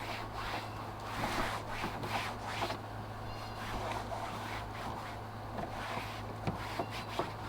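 Plastic engine-bay trim pieces and push-in expansion clips being handled and fitted by hand: irregular rubbing and scraping, with a few sharp clicks near the end, over a steady low hum.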